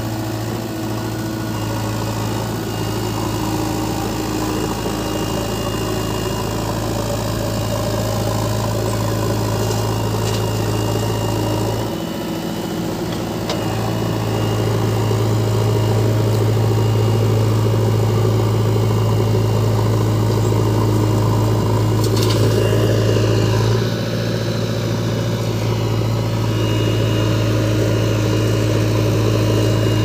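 A JCB 3DX Xtra backhoe loader's diesel engine running steadily as it digs and loads soil, its low hum dipping briefly twice.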